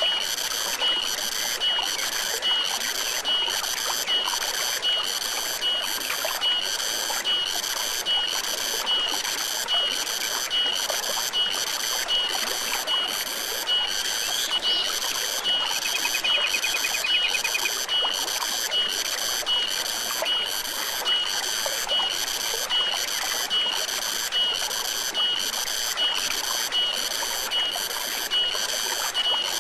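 A forest stream running steadily, with an animal's high-pitched chirping call repeating evenly, about three calls every two seconds. A brief trill comes in about halfway through.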